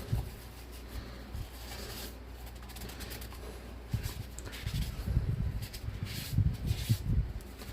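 Cloth wiping and rubbing a wet snow globe dry, with handling noises; irregular soft low bumps come thick in the second half.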